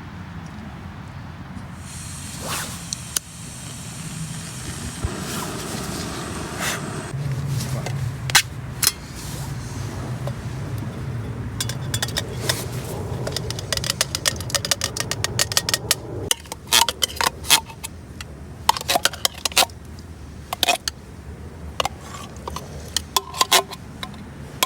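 Small gas-canister backpacking stove burning with a steady hiss under a metal cook pot. In the second half come many sharp metallic clinks and scrapes of a utensil against the pot.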